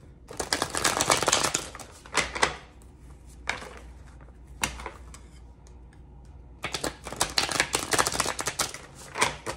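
A tarot deck being shuffled by hand: a quick clicking patter of cards against cards in two bursts, one just after the start and a longer one over the last three seconds, with a few single card taps between.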